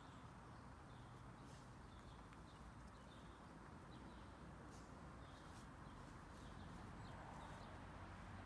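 Near silence: faint outdoor ambience with scattered short, high chirps and a few soft clicks.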